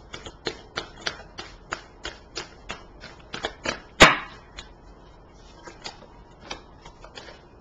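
A deck of cards being shuffled by hand: a quick run of sharp card taps, about four a second, with one louder snap about four seconds in, then sparser taps.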